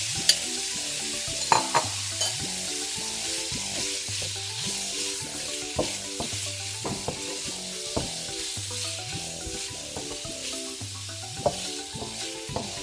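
Raw diced steak sizzling in hot peanut oil in a wok as it is stirred, with sharp clicks every second or two from the utensil against the pan.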